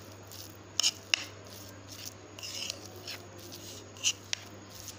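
Metal fork scraping and clicking against a plate while mashing and mixing chopped boiled egg with mayonnaise, in short irregular strokes.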